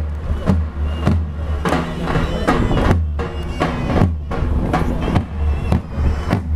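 Davul bass drum and zurna shawm playing traditional oil-wrestling music: a shrill, held reed melody over drum beats about twice a second.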